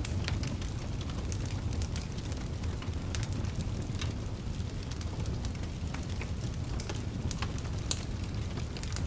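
Wood fire crackling in a fireplace: a steady low rumble of flames with frequent sharp, irregular pops and snaps.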